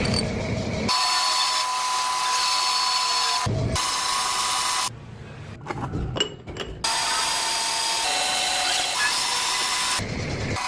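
Metalworking lathe running, with a steady whine and cutting noise. The sound changes abruptly several times, between stretches of whine and shorter stretches of low rumble, with a quieter stretch of clicks in the middle.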